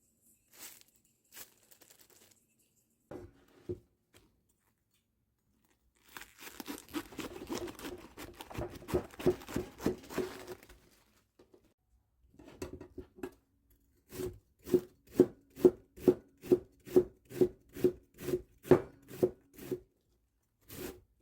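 Knife chopping on a cutting board: a fast run of chopping strokes, then a steadier series of about two to three even knocks a second.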